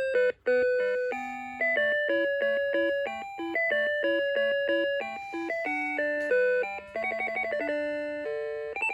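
Seiko Musica alarm clock's electronic melody chip playing a tune in clean beeping notes, with a melody over a lower part. The tune breaks off for a moment about half a second in, and it has a quick run of rapidly repeated notes near the end.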